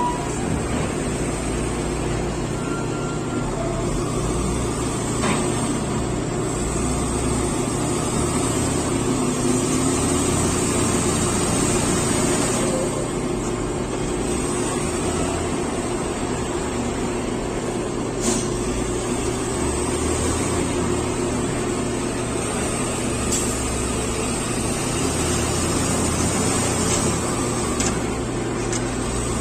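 Diesel engines of wheel loaders running and working steadily, rising and falling under load, with occasional clanks and one sharp knock about 18 seconds in.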